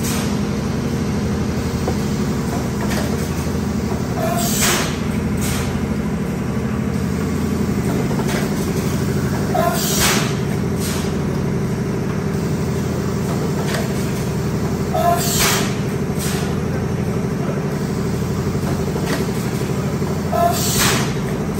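Automatic stretch blow molding machine running with a steady low hum. Four times, about every five seconds, there is a sharp hiss of compressed air venting as each blow cycle exhausts.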